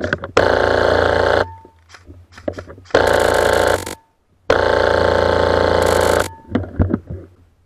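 Dual HPA-powered airsoft rifles (CSI XR-5s with Polarstar engines) firing full-auto: three loud, rapid rattling bursts of one to two seconds each, the last the longest, with small clicks in between.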